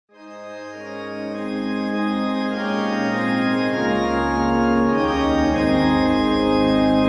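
Intro music of sustained organ-like chords, fading in from silence and swelling, with low bass notes entering about four seconds in.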